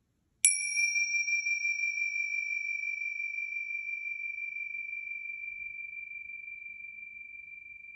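A pair of tingsha (Tibetan finger cymbals on a cord) struck together once, about half a second in, then ringing on with a long, slowly fading high tone. The brightest upper overtones die away within about a second, and a higher ring fades out a few seconds later.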